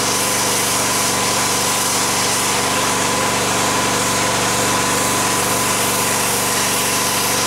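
Pressure washer running steadily, its fan-spray jet hissing as it blasts the wet paving slabs.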